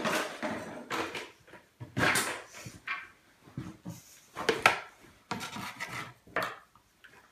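A run of irregular rustling and knocking handling noises, about a dozen short bursts; a white plastic tub is set down on the wooden table near the end.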